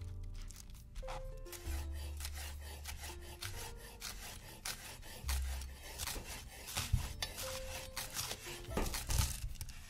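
Irregular rasping strokes of a vegetable being shredded in the kitchen, over soft background music with held notes and a low bass.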